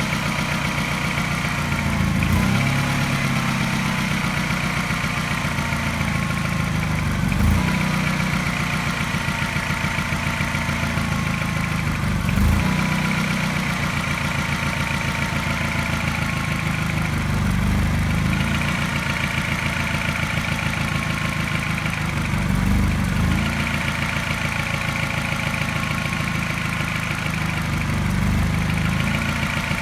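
Mini N12 1.6-litre four-cylinder petrol engine idling, with a brief stumble about every five seconds. Each stumble is a regular slight misfire that comes with a mild tap.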